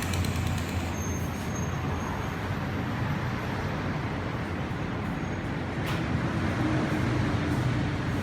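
Steady machine noise with a low hum, and one sharp click about six seconds in.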